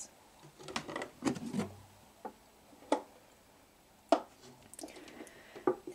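A vintage sewing machine's wooden carrying case being unfastened and its lid lifted off. Sharp clicks and wooden knocks with some rubbing, a cluster of them in the first two seconds, then single knocks about a second apart.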